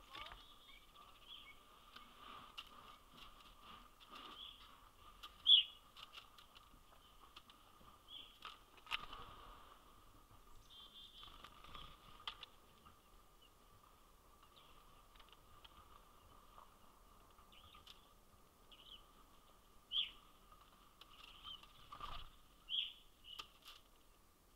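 Outdoor birdsong: scattered short bird chirps and calls over a faint steady background, with a few sharp knocks.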